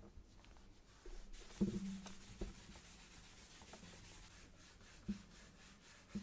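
A wooden painting panel being hand-sanded with a sanding block: a faint, steady scratchy rasp of quick strokes that starts about a second in. A few short knocks of the board sound through it.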